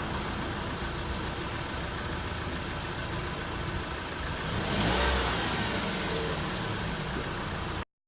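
2012 Dodge Dart engine idling on freshly changed oil, with one brief rev about halfway through before it settles back to idle.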